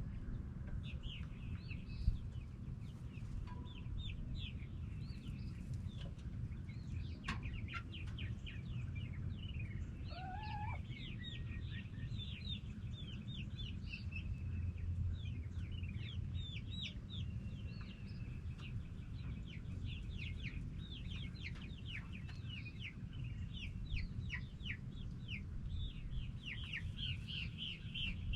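Backyard hens clucking continually in many short, quick calls, with one call rising in pitch about ten seconds in. A steady low rumble runs underneath.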